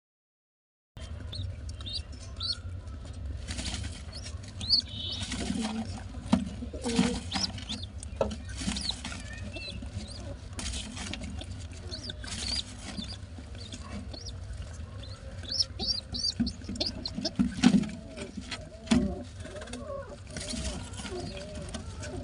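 Pigeon squab begging while its parent feeds it beak-to-beak: many short, thin, high squeaks and peeps, mixed with repeated rustles and wing-flapping as it pushes into the adult's beak.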